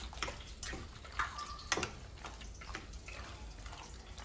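Hand tossing raw chicken pieces in their marinade in a pot: irregular wet squelches and light knocks against the pot, the sharpest a little under two seconds in.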